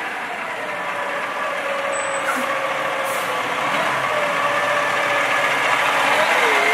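Tractor-drawn aerial ladder fire truck's diesel engine running as the truck drives slowly around a corner toward the listener, getting steadily louder, with a steady whine over the engine noise. Two short hisses come about two and three seconds in.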